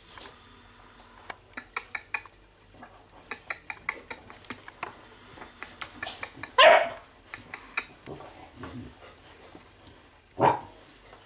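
Tosa Inu puppy barking twice: a half-second bark about six and a half seconds in and a shorter one near the end. Before them, a run of light clicks and taps.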